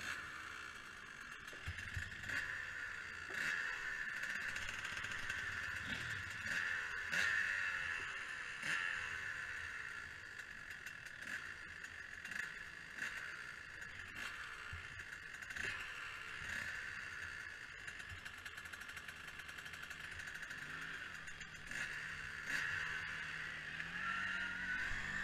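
A field of enduro dirt bikes running together on a start line, engines idling with repeated short throttle blips. Near the end one engine's note rises in steps as it is revved harder.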